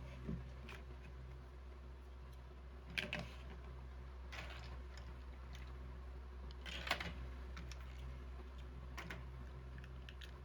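A few scattered small clicks and taps of plastic toy building blocks being handled, over a steady low hum.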